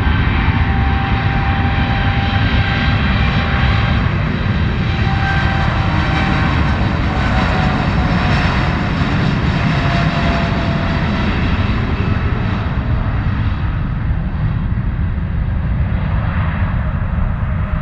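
Airliner engines running loudly as a plane passes close by the runway, a steady rush with thin whining tones that slowly fall in pitch; the sound drops off suddenly at the end.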